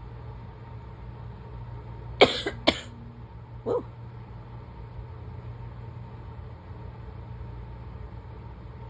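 Two sharp, loud coughs about half a second apart, a barking asthma cough, followed a second later by a short exclaimed "woo". A steady low hum runs underneath.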